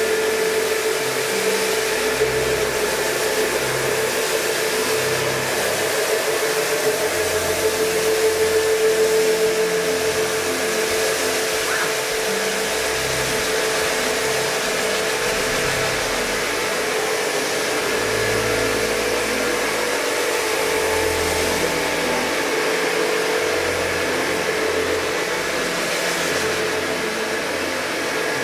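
Electric cylindrical-brush carpet scrubber running steadily, its motor holding one constant tone while the rotating brushes churn shampoo into a wet rug.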